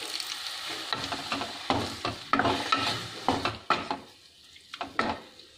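Tomatoes and green chillies in milk and water sizzling in a non-stick kadai while a wooden spatula stirs them, with irregular scraping strokes against the pan. The sizzle is a steady hiss at first, and the stirring strokes come unevenly from about two seconds in.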